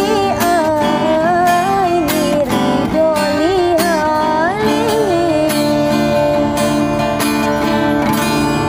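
A woman sings the closing phrase of a sholawat in long, ornamented runs over a strummed acoustic guitar. Her voice stops about five and a half seconds in, and the guitar strums on alone as the song ends.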